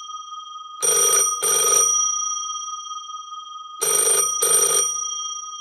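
Old telephone bell ringing in two double rings (ring-ring) about three seconds apart. Between the pairs the bell's tone hangs on and fades away.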